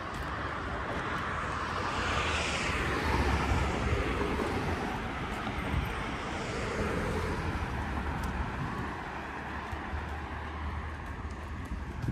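Road traffic passing on the street: car tyre and engine noise swelling and falling away, once about two seconds in and again about six seconds in, over a steady low rumble.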